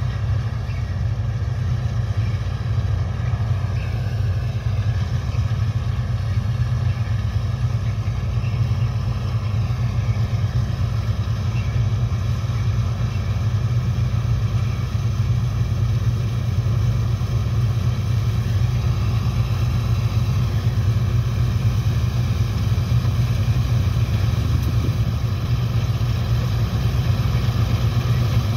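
New Holland TC56 combine harvester running steadily as it harvests, a deep engine drone that grows a little louder as the machine comes closer. A second combine runs behind it.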